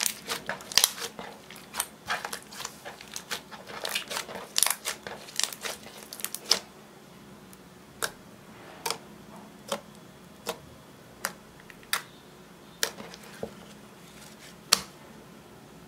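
Glittery clear slime squeezed and kneaded by hand, giving a dense run of crackly squelches and air-bubble pops. After a short pause come single sharp pops, about one a second, as fingers press into the flattened slime.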